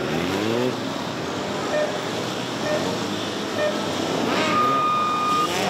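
Sport motorcycle engine revving up and falling back as the bike is ridden through tight turns, with rising revs at the start and again near the end. There is a steady high-pitched squeal for about a second near the end.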